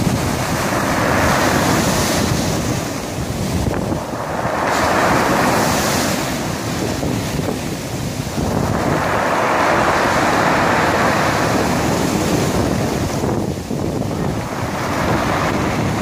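Sea waves breaking and washing over a pebble beach, swelling into a louder rush every few seconds and easing back between, with wind rumbling on the microphone underneath.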